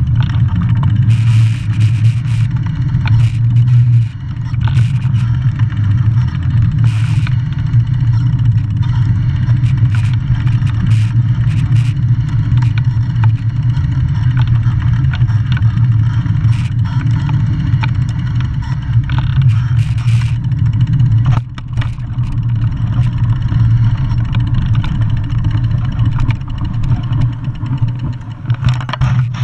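Steady wind and tyre rumble from a mountain bike riding along a paved path, heard on a handlebar-mounted GoPro, with scattered rattling clicks from bumps.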